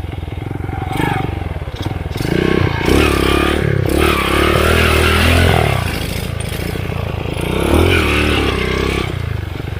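Underbone motorcycle's engine running and revved up twice, once about two to three seconds in, held for a few seconds, and again briefly near eight seconds.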